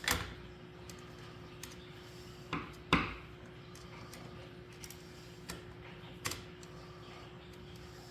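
Sharp clicks and knocks of hard plastic and metal as a new electrical outlet is handled and its screws are driven with a hand screwdriver: about five distinct clicks, the loudest about three seconds in, over a faint steady hum.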